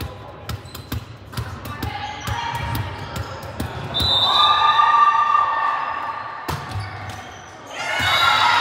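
Volleyball ball bouncing and thudding on a hardwood gym floor, with a short referee's whistle about four seconds in. Players' voices shouting over and after the whistle, and again near the end.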